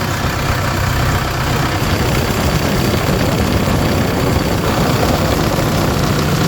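Heavy excavator engine running steadily with an even, unbroken rumble.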